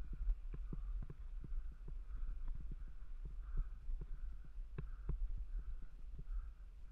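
Mountain bike ride noise on a rocky trail, heard through a helmet-mounted camera: a low wind rumble on the microphone with frequent irregular knocks and bumps as the camera is jolted. Two sharper taps come near the end.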